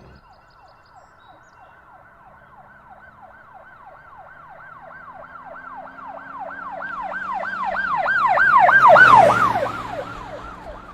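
Emergency vehicle siren on a fast yelp, about three sweeps a second, growing steadily louder and then dropping in pitch and fading about nine seconds in as it passes by.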